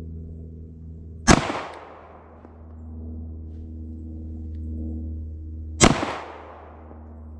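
Two pistol shots from a 9mm Glock 48, fired slowly about four and a half seconds apart, each a sharp crack with a short echoing tail. A steady low hum runs underneath.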